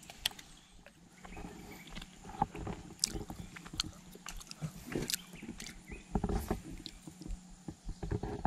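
Scattered light knocks and taps from a small aluminium boat and the fishing gear in it, irregular and of varying loudness, over a faint steady low hum.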